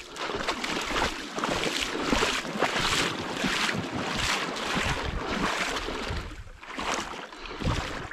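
Wind buffeting the microphone, mixed with irregular crunching and rustling as someone walks through snow and brush.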